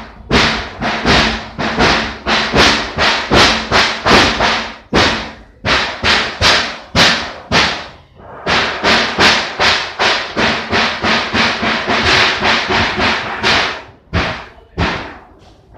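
Loud music with a fast drum beat, about two to three sharp hits a second, broken by short pauses a few times.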